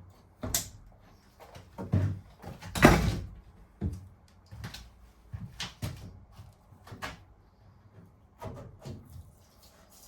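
A series of irregular knocks and bumps, the loudest about three seconds in: wooden battens being handled and fitted.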